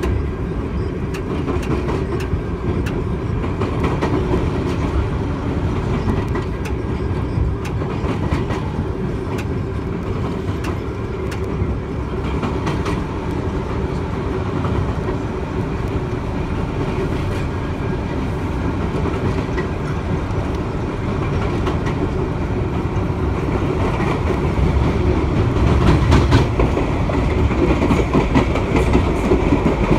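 Inside an NYC Subway 1 train running at speed: steady rumble of steel wheels on rail with a rapid clatter of clicks over the track joints. It grows louder in the last few seconds as another train passes on the adjacent track.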